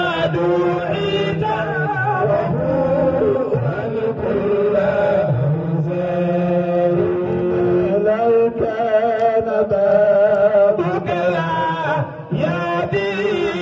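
A man chanting into a microphone over a sound system, in long wavering held notes and melodic runs with only brief breaths between phrases.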